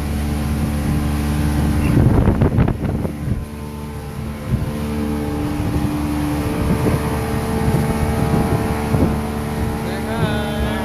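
Motorboat engine running steadily under way, with wind and water noise. The noise swells roughly for about a second, some 2 s in.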